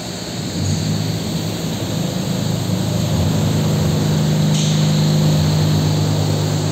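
Heavy machinery droning steadily, a deep hum that swells about half a second in and then holds level.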